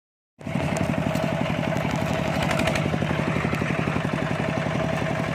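Small engine running steadily with an even, fast pulsing beat; it cuts in abruptly about half a second in.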